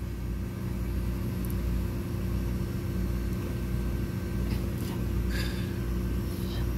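Steady low mechanical hum with a few fixed tones in it, like a fan or other small machine running.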